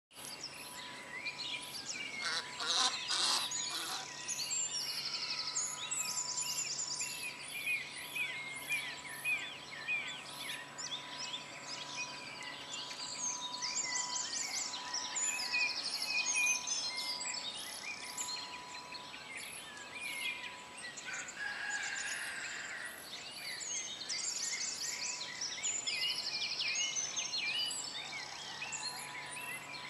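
A chorus of birds calling and singing: many overlapping short chirps and whistles with repeated rapid trills, over a faint steady tone.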